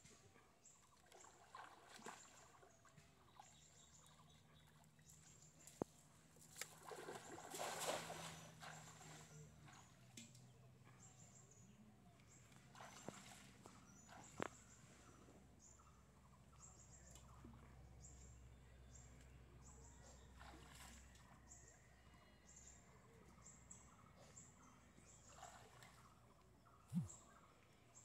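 Quiet pond ambience: faint water sloshing and dripping around a man wading waist-deep, with a louder stretch of splashing about seven seconds in and scattered faint bird calls.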